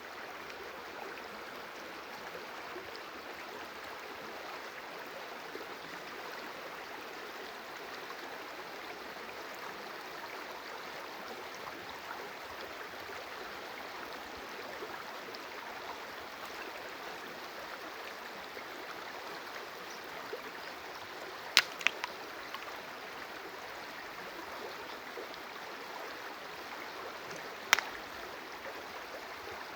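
A stream of water flowing steadily with an even rushing babble. A few sharp clicks cut through it, a quick cluster about two-thirds of the way in and one more near the end.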